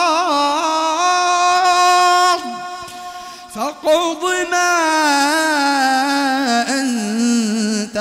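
A man's voice reciting the Quran in a slow, melodic tajweed style: long held notes ornamented with wavering turns. The voice drops away for a breath about two and a half seconds in, then comes back about a second later with more drawn-out notes sliding down in pitch.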